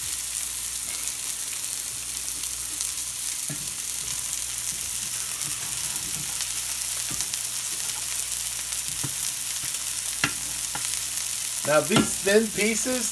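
Seasoned fish fillets frying in oil and butter in cast-iron skillets: a steady sizzling hiss. A few light clicks come from the metal spatula against the pan.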